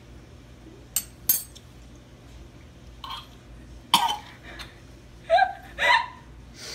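A girl coughing and gagging right after swallowing a spoonful of a disgusting condiment mixture: two sharp clicks about a second in, a loud cough about four seconds in, then two short voiced gagging heaves near the end.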